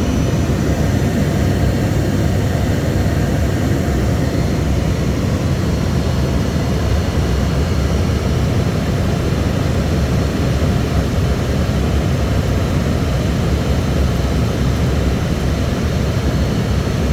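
ATR 72 twin-turboprop engines and airflow heard from inside the aircraft, a loud, steady drone that is heaviest in the bass with a faint high whine.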